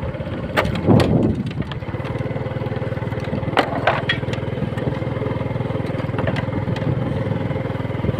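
A small vehicle engine running steadily while driving along a rough dirt road. There are several sharp knocks and rattles, the loudest about a second in and two more about three and a half seconds in.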